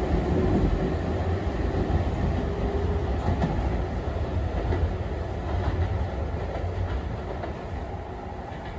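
Abukuma Express series 8100 thyristor phase-controlled electric train running away from the platform, its low rumble, steady hum and wheel clatter fading steadily as it recedes.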